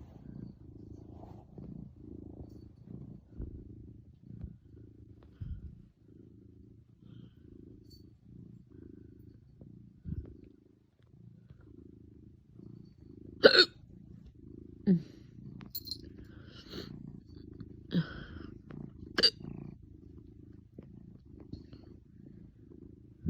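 A cat purring steadily, the purr pulsing with each breath at about two pulses a second. Four sharp hiccups break through in the second half, the first the loudest.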